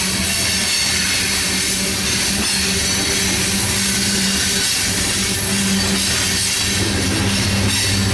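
A train rolling past at close range: a steady rush of wheels on rail with a continuous droning tone underneath.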